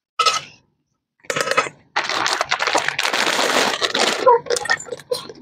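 Shredded cabbage being mixed with spices in a metal bowl: crunching and rustling of the cabbage, with clinks of a steel spoon against the bowl. A few short scrapes come first, then about three seconds of steady mixing.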